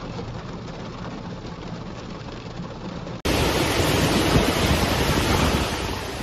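Heavy rain beating on a car windshield, with a low steady hum under it. About three seconds in it cuts abruptly to louder noise of typhoon-force wind and driving rain.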